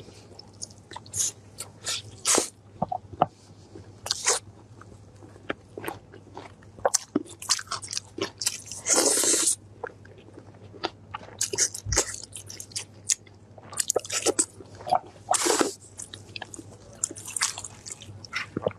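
Close-miked eating sounds: a person chewing and biting into sauce-glazed pork on the bone, in irregular short bites and chews with a few longer ones.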